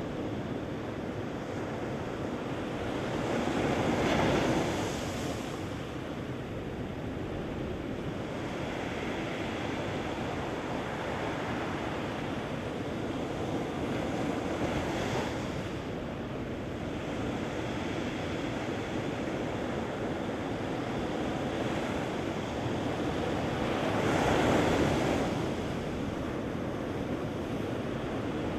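Ocean surf breaking and washing up a sandy beach: a continuous rush of water that swells louder three times, about four seconds in, around fifteen seconds and near twenty-five seconds.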